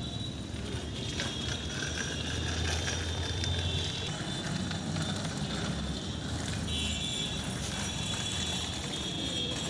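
Outdoor background: steady high-pitched insect buzzing that drops out and returns, over a low rumble that swells through the middle.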